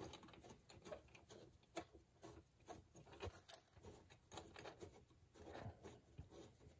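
Faint, irregular small clicks and scrapes of a screwdriver working against a #2 Victor square-jaw trap as its pan is put back on.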